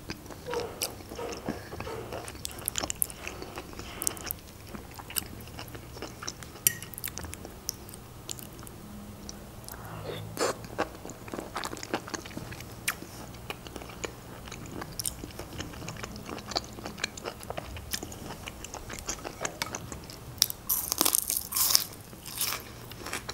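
Close-miked chewing and wet mouth sounds of a person eating baked mushrooms in cream: many small clicks and smacks. Near the end there is a denser, louder run of smacking as she licks her fingers.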